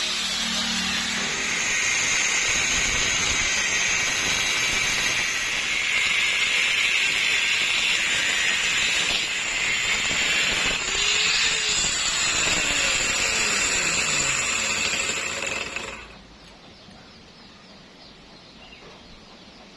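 A power tool working metal, running steadily with a high whine and hiss, then stopping about sixteen seconds in.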